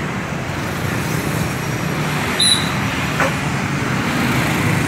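Steady low engine drone with a fast, even pulse, and a short high beep about two and a half seconds in.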